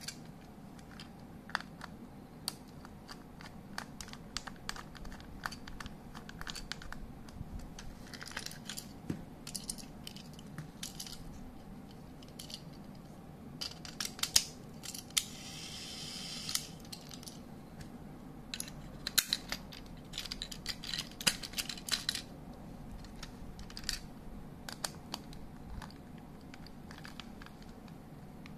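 Irregular small plastic clicks and taps as a Plarail toy train car is handled and taken apart, its shell and wheeled chassis knocking against each other in the hands. Partway through there is a brief scraping rustle.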